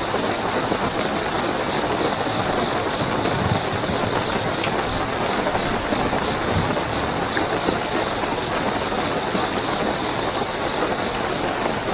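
Steady heavy rainfall, with a continuous high-pitched trill of night crickets above it.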